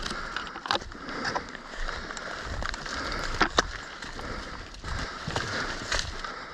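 Rustling movement noise with scattered sharp clicks and knocks, two strong cracks close together in the middle.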